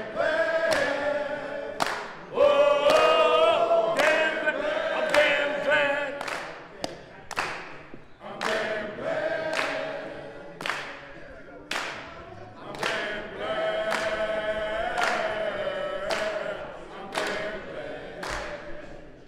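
A group of men singing together a cappella, with hand claps keeping a steady beat about once a second.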